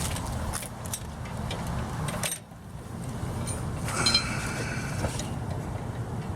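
Light metallic clinks and rattles over a low steady rumble, with a brighter ringing clink about four seconds in.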